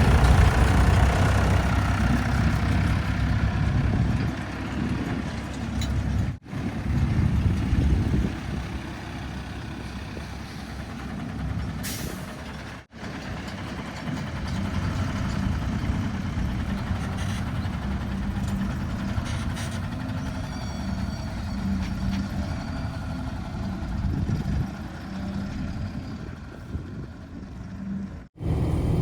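Heavy diesel engines running, with engine pitch and loudness shifting across several short clips cut together. There is a brief hiss about twelve seconds in.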